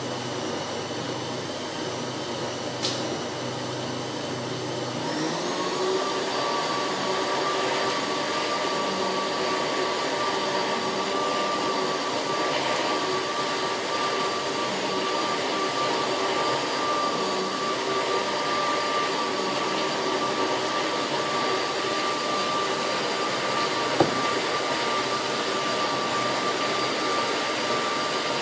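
Electric blender pureeing tomatoes: the motor spins up about five seconds in, its pitch rising, then runs on at a steady high whine.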